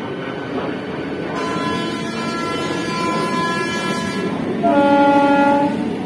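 Electric multiple unit train running on the rails, with train horns sounding over it: one long blast starting about a second and a half in and lasting about three seconds, then a louder, lower-pitched blast near the end lasting about a second.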